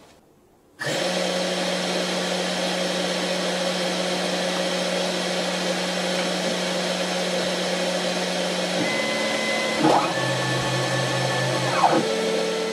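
Colinbus CNC profiler running: its spindle motor comes on abruptly about a second in and runs with a steady hum. In the last few seconds its stepper motors move the axes, with whines that rise and fall in pitch as they speed up and slow down.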